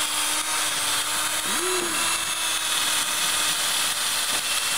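Cordless drill running steadily, its bit grinding into the metal cover and platters of a hard drive, with a steady hum from the motor under the grinding. The bit is slow to get through, and the driller suspects a better drill bit is needed.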